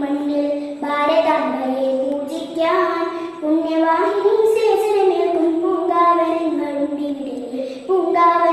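A young girl singing a Malayalam patriotic song solo, in long held phrases with short breaths between them.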